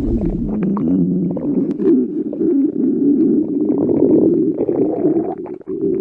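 Stomach rumbling and growling: a continuous warbling, gurgling growl that breaks off briefly near the end.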